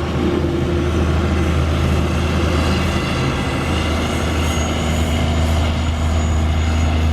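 Heavy engine of farm machinery running steadily: a continuous low drone with a faint high whine over it in the second half.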